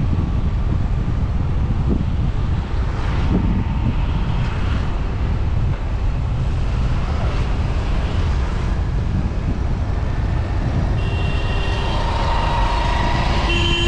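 Steady rumble of road and wind noise from a moving vehicle in traffic. Near the end a held, higher steady tone joins in.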